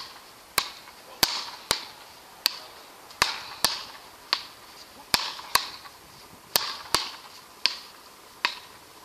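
Wooden beach-racket paddles hitting a ball back and forth in a rally: a string of sharp knocks, about thirteen, spaced half a second to a second apart.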